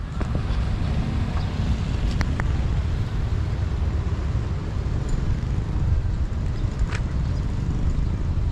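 Road traffic running past as a steady low rumble, with a few faint ticks.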